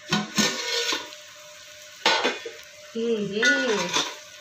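Aluminium cooking pot's lid clattering as it is lifted off, then a steel spoon knocking and scraping against the pot as chicken is stirred, with the food sizzling lightly.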